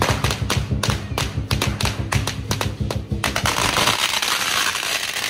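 A string of firecrackers popping, at first in separate sharp bangs over lion dance drumming. About three seconds in, the pops merge into a dense, continuous crackle as the drumming drops out.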